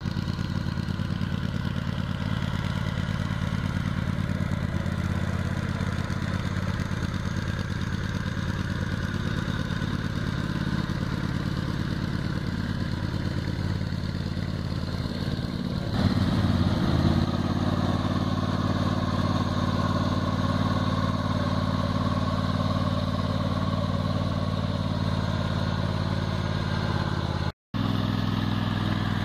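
Small lawn-tractor engine running steadily as a six-wheeled off-road lawn mower is driven over rough ground. About halfway through there is a knock and the engine gets louder, and near the end the sound cuts out for a moment.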